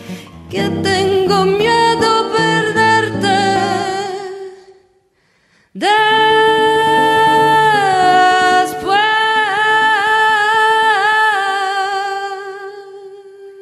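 A female voice singing over a guitar in a slow bossa-nova/jazz ballad. The phrase breaks off for a moment just before the middle, then one long held sung note with vibrato slowly fades away.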